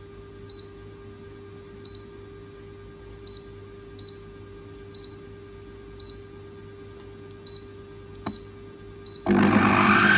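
Autumnz 8-in-1 baby food processor's blender motor switched on near the end, spinning up with a loud rising whine. Before it there is only a steady low hum with faint short high blips.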